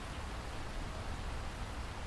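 Steady rain, an even hiss with no single drops or claps standing out, over a constant low rumble.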